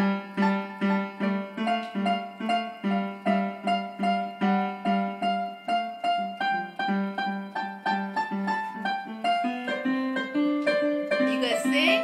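A small child playing a piano, striking notes in a steady rhythm of about three a second: a low note repeated over and over with higher notes picked out above it. Near the end the low note steps up.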